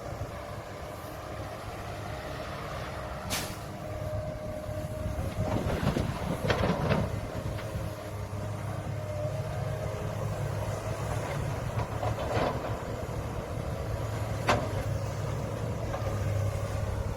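Diesel engine of heavy earthmoving machinery running steadily. Several sharp metal clanks come through it: one a few seconds in, a cluster near the middle, and two more towards the end.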